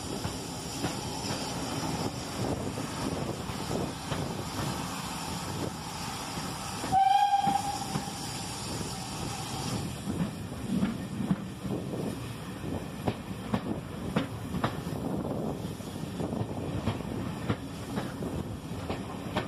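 Heritage steam train running, heard from one of its carriages: a steady rumble with frequent clicks and clatter from the wheels over the rails. About seven seconds in, the locomotive's steam whistle sounds once, briefly and loudly.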